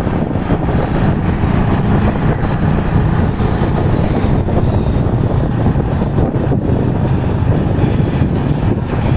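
Keeway K-Light 202 motorcycle engine running steadily while riding along, with wind rushing over the microphone.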